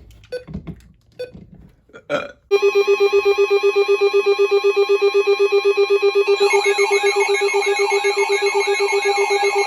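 Weather radio receiver's alert alarm going off for an incoming alert: a loud, rapidly pulsing beep that starts suddenly after a couple of seconds of faint clicks. About two-thirds of the way through, a second, warbling alarm tone joins it.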